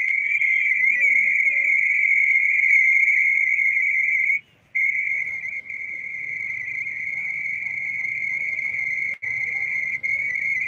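A loud, steady, high-pitched whine: a single held tone with faint overtones. It drops out for about a quarter second some four and a half seconds in and for brief moments near the end.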